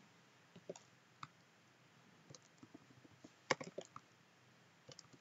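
Faint computer keyboard keystrokes, tapped one at a time with pauses, and a quick run of several keys about three and a half seconds in.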